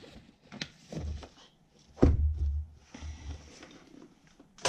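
Handling noises from a zippered hard-shell gimbal carrying case being packed and closed: a few knocks and thumps, the loudest about two seconds in, then a longer rasping sound as the case is closed, and a sharp knock at the very end.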